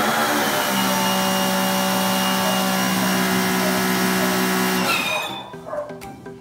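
Pressure washer running at a steady pitch with a high hiss of spray, then stopping about five seconds in.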